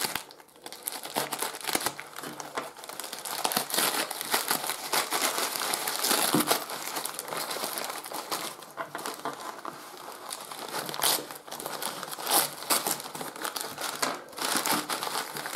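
Brown wrapping paper crinkling and rustling as it is cut and pulled open by hand, a steady dense crackle throughout.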